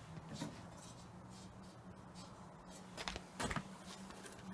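Dry sticks of kindling knocking against metal as they are handled at a perforated chimney starter and tin can: a faint click about half a second in, then a short cluster of clattering knocks around three seconds in.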